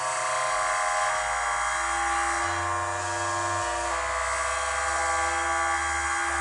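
Eurorack modular synthesizer patch droning: a buzzy, hissy tone with many steady overtones over a low bass note that steps to a new pitch a few times.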